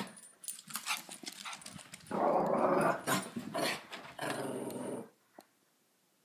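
Small shaggy dog barking in a rapid series of loud bursts, one drawn out to about a second, at another dog passing outside. It stops abruptly about five seconds in.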